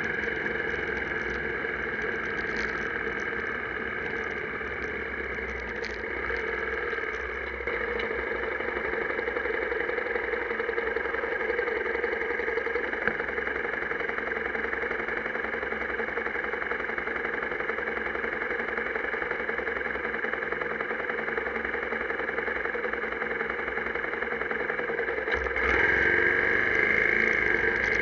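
Honda XR250 Tornado's single-cylinder four-stroke engine running steadily on a ride. It gets louder near the end as the revs change.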